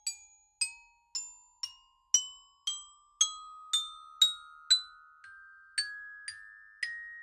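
Xylophone music playing a slow rising scale: one struck note about every half second, each ringing on, climbing in pitch step by step.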